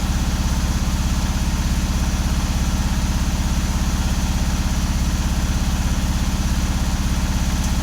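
Mahindra Jeeto BS6 diesel engine idling steadily with an even, fast pulsing beat, running through a forced DPF regeneration.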